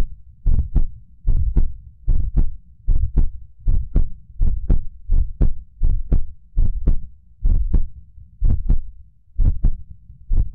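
Heart sounds derived from a high-fidelity aortic pressure recording of a normal heart: steady paired beats, first and second heart sound, about 75 to 80 a minute, with a low steady hum underneath. The beats space out slightly near the end as the Valsalva strain begins.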